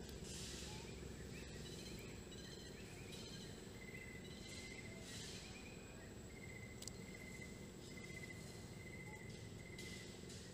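Faint outdoor ambience: a steady high insect whine, with short bird chirps and repeated trills throughout and a few soft bursts of hiss.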